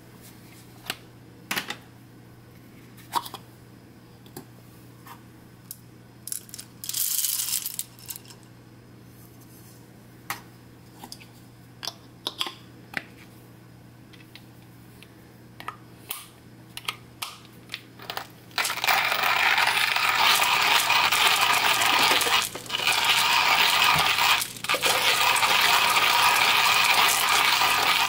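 Hario hand burr coffee grinder being loaded and handled: scattered clicks and small rattles of the plastic lid, handle and coffee beans. About two-thirds of the way in, the grinder is cranked: a loud, steady crunching of beans being ground, with two brief pauses.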